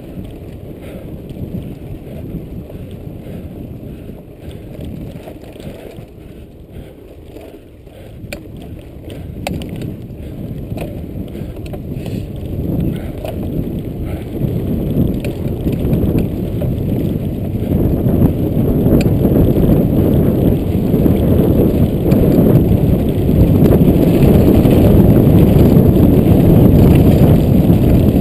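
Wind buffeting the microphone over the rumble and crunch of mountain bike tyres on a dirt track, with a few scattered clicks and rattles from the bike. The noise grows steadily louder through the second half as the bike speeds up downhill.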